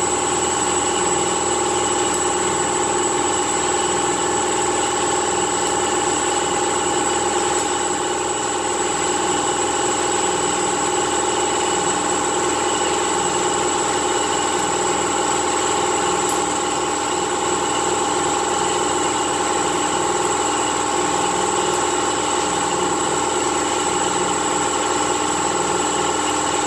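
Air compressor running steadily: a constant mechanical hum with a high, unchanging whine.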